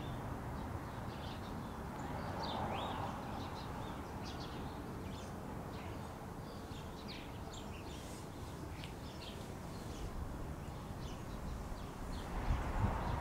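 Small birds chirping repeatedly in short, high calls over steady outdoor background noise, with a few low thumps near the end.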